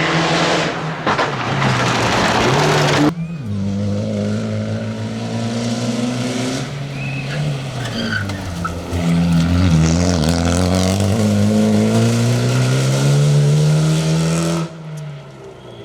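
Fiat Egea rally car's turbocharged 1.4 T-Jet four-cylinder at full throttle, its pitch climbing and dropping again and again through gear changes. Loud tyre noise with skidding in the first few seconds, and the sound changes abruptly twice, near three seconds in and near the end.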